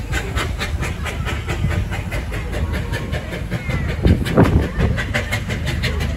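Small steam tank locomotive pulling away, its exhaust chuffing in a quick, even beat of about four to five a second, with a louder swell of noise about four seconds in.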